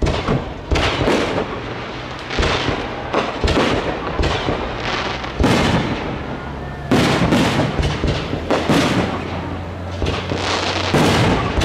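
Aerial firework shells bursting in a rapid, irregular series of loud bangs, more than a dozen, with crackling between them.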